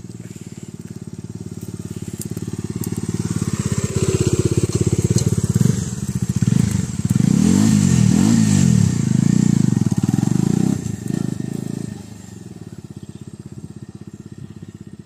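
Bajaj Dominar 250's single-cylinder engine as the motorcycle rides up, passes close by and pulls away. The engine note grows louder, is loudest with its pitch bending about seven to ten seconds in, then drops off sharply and carries on fainter as the bike rides off.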